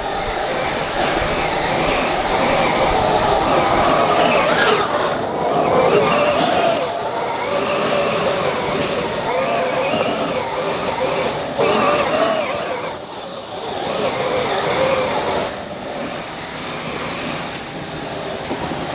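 A 1:5 scale RC rally car's brushless motor and all-steel gears whining, rising and falling as it accelerates and slides, with its hard tyres scrabbling on dry, dusty dirt. The sound starts abruptly and eases off briefly twice in the second half.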